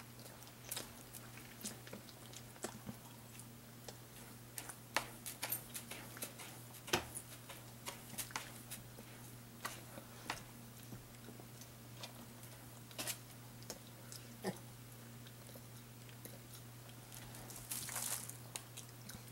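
A cat scratching in the litter of a plastic litter box to cover up after urinating: scattered gritty scrapes and crunches, denser in the middle and in a cluster near the end. A steady low hum runs underneath.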